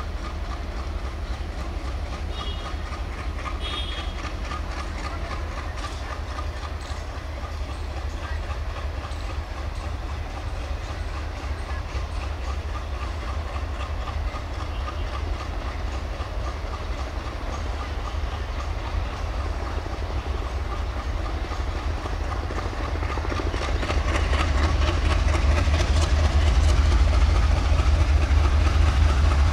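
ALCO WDM-3A diesel-electric locomotive's engine running as the train approaches slowly, a steady low rumble that grows louder over the last several seconds as it draws near.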